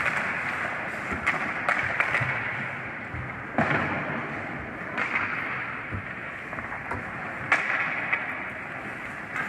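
Hockey skates scraping and carving on rink ice, with sharp clacks of sticks and puck several times. The loudest clacks come about a third of the way in and again towards the end.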